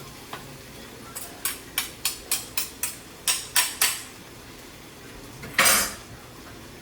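Metal spoons knocking against a cooking pot while stirring a stir-fry: about ten sharp clacks at roughly three a second, then one louder scraping clatter about five and a half seconds in.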